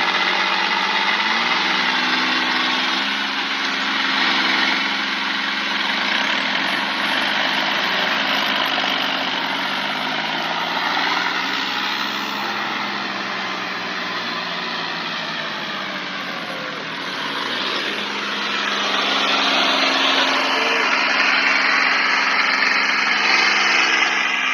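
Two diesel tractor engines labouring under heavy load as the tractors pull against each other, engine speed rising and falling, with a heavy hiss from the rear tyres spinning and churning the dirt.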